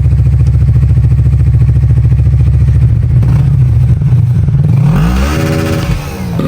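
Engine running steadily with rapid, even firing pulses, then revving up, holding briefly and dropping back near the end.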